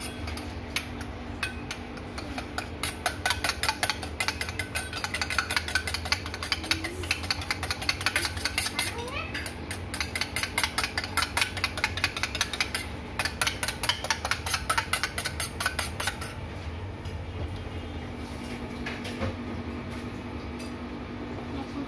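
Spoon beating eggs in a small stainless steel bowl: a fast, rapid run of metallic clinks and taps against the bowl, several a second, which stops about three-quarters of the way through. A steady low hum runs underneath.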